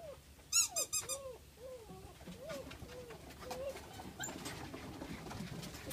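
German Shepherd puppies whimpering and whining in a string of short rising-and-falling cries, with a few high, squeaky yelps about half a second in, over light scuffling.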